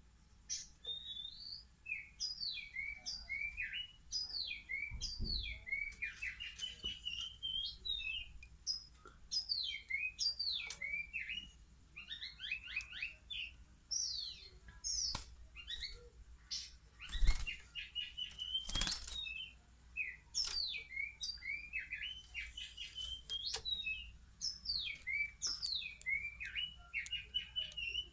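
Juvenile oriental magpie-robins (speckled kacer fledglings about three weeks old) chirping in rapid strings of short, sliding notes. A couple of sharp knocks come near the two-thirds mark, the first one the loudest sound.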